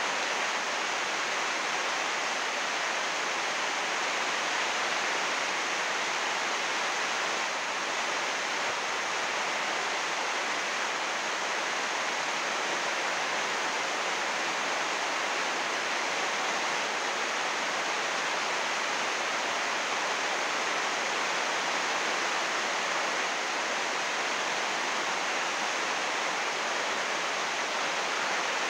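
Heavy rain falling on a greenhouse roof of 80-micron UV plastic film: a steady, even hiss of dense drops.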